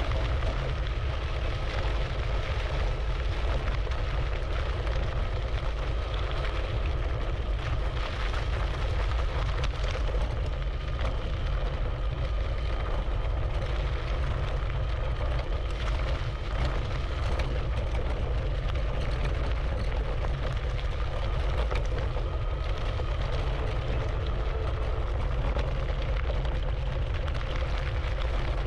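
The 500-watt geared motor of an IO HAWK Legend e-scooter whining steadily as it rides over rough ground, its pitch drifting a little with speed. Heavy wind rumble on the microphone and scattered knocks and rattles from bumps sit under it.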